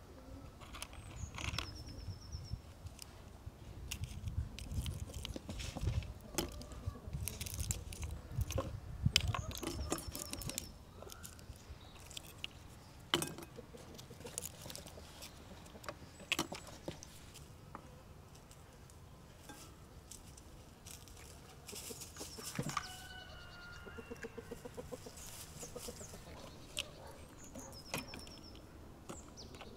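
Domestic chickens clucking, most clearly a little past the middle, with a few high bird chirps. Scattered clicks and knocks come from hand work at a wooden table: walnuts being pried open and dough being mixed in a bowl.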